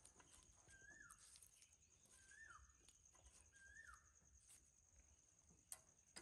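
A faint animal call, a short chirp that rises then falls, repeated three times about a second and a half apart over a faint steady high-pitched whine, with two sharp clicks near the end.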